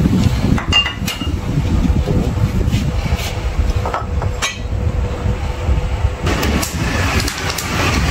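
Wind buffeting the microphone as a steady low rumble, with a few sharp clinks of tableware about a second in and again around four seconds in.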